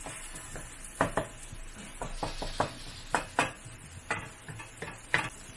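Wooden spatula scraping and tapping against a metal wok in irregular strokes as it stirs and mashes diced tomatoes with onions and garlic, over a faint sizzle of the sautéing oil.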